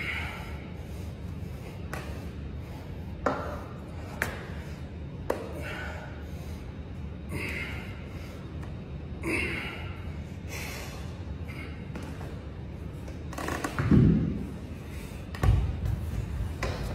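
Short breathy exhales every couple of seconds during seated dumbbell shoulder presses, with a few sharp clicks, over a steady low hum. Near the end there are two heavy thuds, the loudest sounds, as the dumbbells are dropped onto the gym floor.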